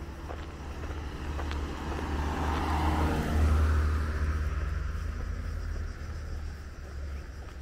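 A car driving past: its engine rumble and tyre noise build to a peak about halfway through, then fade away.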